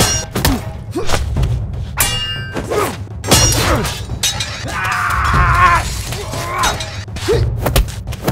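Fight-scene sound effects for hand-to-hand combat: a rapid series of sharp punch and kick impacts and thuds, with music underneath.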